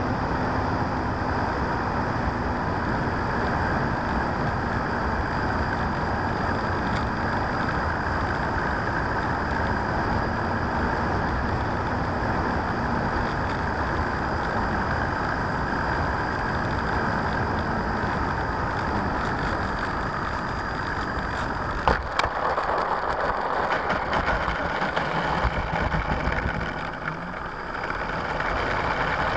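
Airflow rushing past an RC P-51D Mustang model with its electric motor and propeller running, as heard through its onboard FPV camera: a loud, steady howl during the low landing approach. About three quarters of the way through comes a single sharp knock as the wheels touch down, followed by rattling as it rolls on pavement and a drop in the motor noise.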